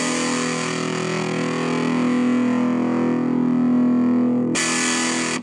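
Electric guitar played through a homemade distortion circuit built from salvaged computer-speaker amplifier parts and heard from a small Rogue guitar amp: one distorted strum left to ring steadily, then cut off near the end.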